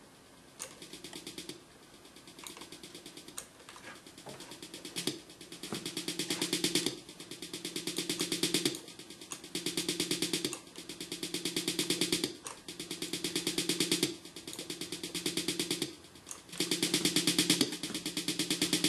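Looping programmed snare drum roll played back from the software, with rapid strokes. Each pass swells from quiet to loud under a drawn-in volume automation ramp, then drops back as the loop restarts, and the passes grow louder over time as the curve is raised.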